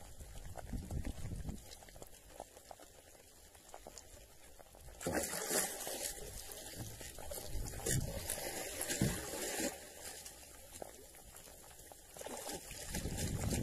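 Water splashing and spraying against a small boat as a hooked tuna is hauled up on a handline and thrashes at the surface. The splashing starts about five seconds in, eases for a couple of seconds, and builds again near the end.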